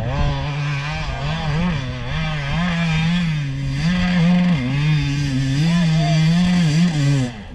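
Enduro motorcycle engine revving loudly, its pitch rising and falling over and over as the rider works the throttle, then cutting off suddenly near the end.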